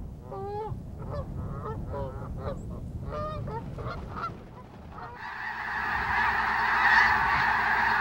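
Canada geese honking, about eight separate calls over the first four seconds above a low rumble. About five seconds in it cuts to the louder, continuous din of a large flock of snow geese all calling at once.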